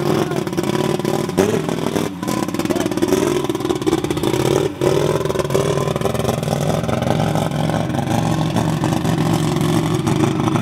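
A big-turbo six-cylinder drag truck engine running steadily, with two brief breaks in the sound about two and five seconds in.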